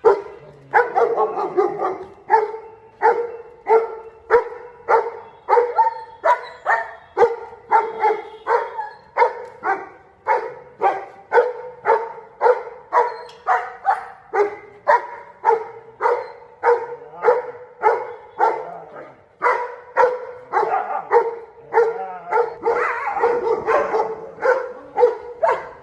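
A dog barking over and over in a steady rhythm, about one and a half barks a second, all at much the same pitch. Near the end the barks come faster and run together.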